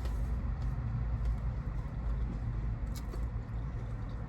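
Low, steady rumble of a car engine idling, heard from inside the car's cabin, with a few faint clicks about three seconds in.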